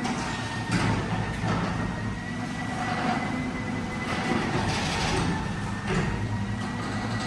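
Newly installed sectional garage door travelling along its metal tracks: a steady mechanical rolling run with a constant high whine and low hum, broken by irregular rattles and knocks.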